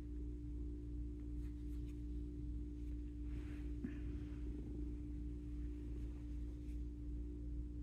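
Cat purring close by, a low pulsing rumble under a steady electrical hum, with a couple of faint rustles about halfway through.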